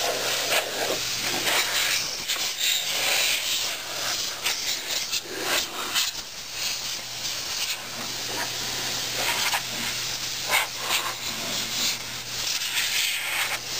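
Compressed-air duster spraying in uneven hissing bursts, blowing dust out of a desktop computer's case.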